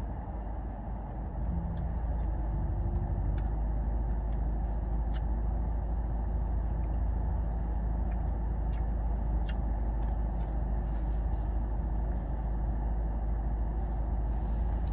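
Steady low hum inside a parked car with the engine and ventilation running, getting a little louder about a second and a half in, with a few faint clicks.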